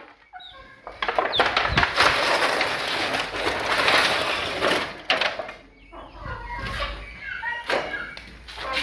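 A flock of free-range local chickens calling and clucking. A loud, even rushing noise covers the middle few seconds.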